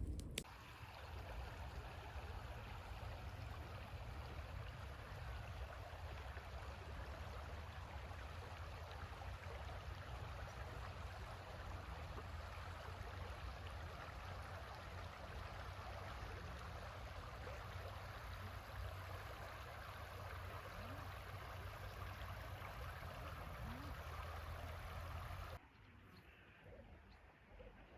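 Steady flowing river water. Near the end it cuts abruptly to a much quieter background.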